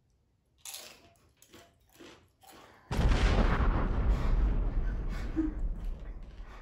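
Crunching of a tortilla chip being chewed, in short crackles. About three seconds in, a sudden loud boom like an explosion cuts in, rumbling deep and fading slowly.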